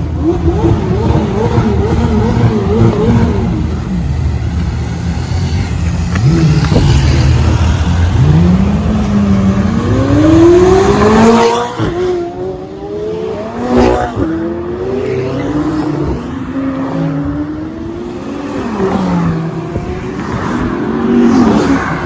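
High-performance sports car engines revving, then accelerating hard, their pitch climbing through successive gears. There is a sharp crack about two-thirds of the way through.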